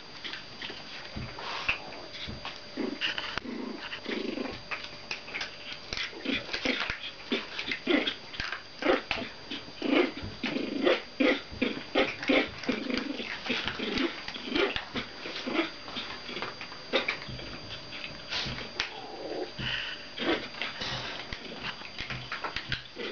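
Puppies growling over and over in short spells as they tug at a rope toy together.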